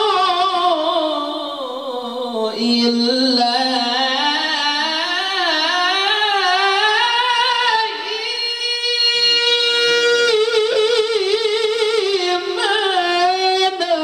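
A man's Quran recitation (tilawah) sung into a microphone, high-pitched and full of melodic variation: long ornamented phrases with a quivering vibrato. The voice slides down at the start, then climbs again, with a brief break about eight seconds in.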